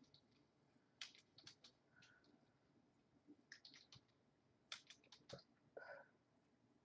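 Faint keyboard typing and clicking in a few short runs, a little under a second each.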